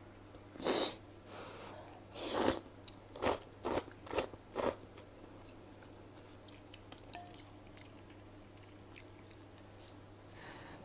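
Close mouth sounds of someone eating instant ramen noodles: about seven short bursts of slurping and chewing in the first five seconds, then only faint chewing clicks.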